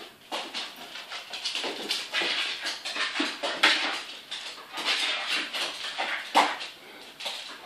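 A dog whimpering in excitement as it chases a light reflection, its claws scrabbling and clicking on a wooden floor as it runs and jumps.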